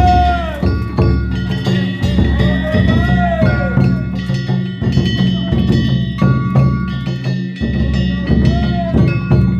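Danjiri-bayashi festival music: a taiko drum beaten in a steady rhythm with hand-struck kane gongs clanging and ringing over it, joined by recurring gliding tones that rise and fall.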